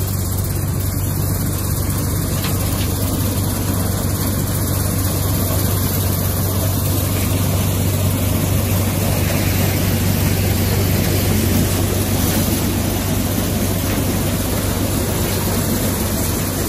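Antique corn sheller running steadily as ear corn is fed into its chain elevator: a loud, constant machine din with a steady low hum underneath.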